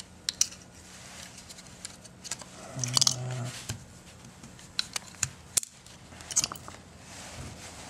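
Small metal clicks and taps of steel pistol parts (sear, trigger bar, pins) being pushed and levered into a Ruger 22/45 frame with fingers and a pocketknife, scattered and irregular. A brief low murmur about three seconds in.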